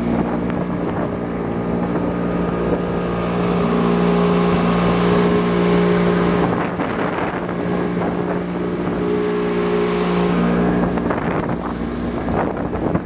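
Motorboat engine running steadily at speed, its even drone over the rush of water and wind on the microphone; the engine tone drops away about eleven seconds in.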